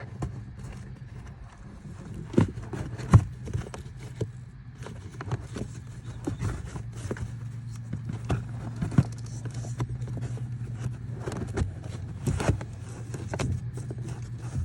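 Irregular clicks, knocks and scrapes of plastic as a stiff cabin air filter is worked out of its housing by hand, a few of them sharp and loud, over a steady low hum.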